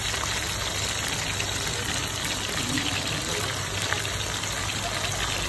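Peacock eels deep-frying in a wok of hot oil: a steady sizzle with small crackles throughout.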